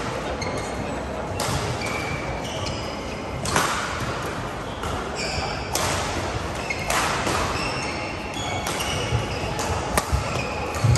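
Badminton play echoing in a large sports hall: sharp racket strikes on the shuttlecock a second or few apart, the loudest a jump smash near the end, with many short high shoe squeaks on the court mats.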